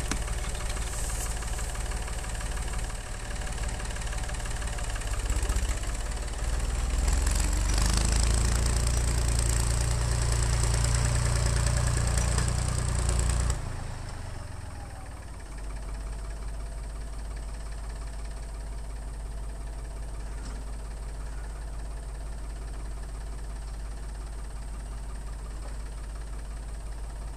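Tractor engine running. It grows louder as the tractor comes up, then about halfway through drops suddenly to a quieter, steady idle.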